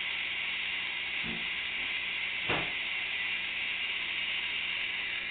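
Steady background hiss, with two soft knocks of a plastic toy screwdriver against a plastic toy block as a toddler turns it, the second knock, about two and a half seconds in, the louder.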